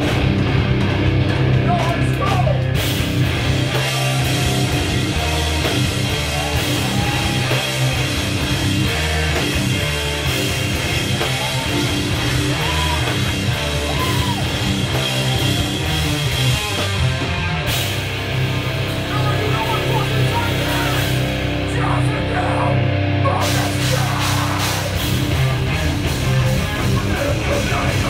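Heavy rock band playing live and loud: distorted electric guitars and bass, with shouted vocals at times. The drums and cymbals come in about three seconds in, then drop out for a moment past the middle and again for about two seconds later on.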